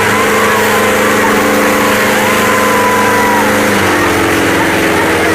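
Kubota tractor engine running steadily, its pitch dropping about four seconds in as the engine slows.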